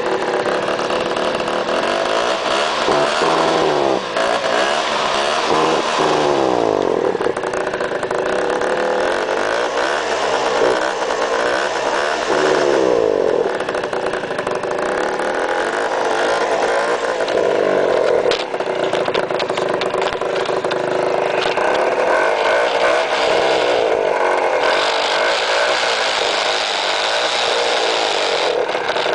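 Peugeot Speedfight 2 scooter's two-stroke engine running and being revved up and down, its pitch rising and falling. The owner finds its engine noises strange.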